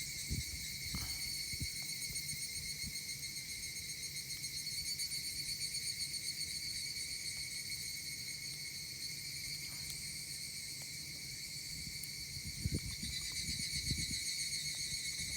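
Insects chirring steadily in several high pitches at once, with a few soft low thumps near the start and again near the end.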